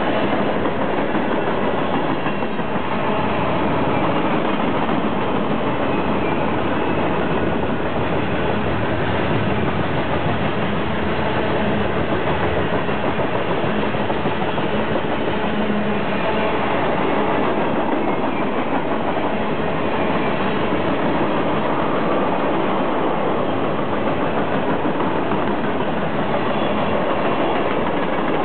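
Freight cars of a long mixed freight train rolling past: a steady rumble and clatter of steel wheels on the rails.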